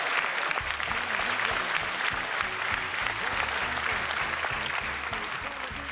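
Applause-like crowd noise, a dense crackling hiss, over a soundtrack with a plucked bass line; the crowd noise thins toward the end while the music carries on.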